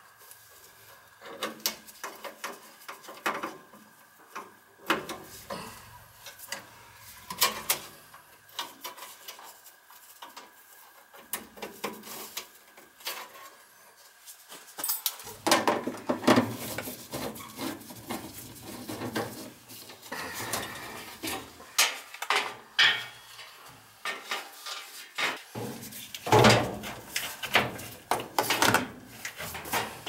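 Clicks, knocks and metallic clatter of hand work on a Goodman gas furnace cabinet: wire connectors and tools handled, then a nut driver on the cabinet screws and the sheet-metal access panel being handled. The clatter gets busier and louder about halfway through, over a faint steady whine in the first half.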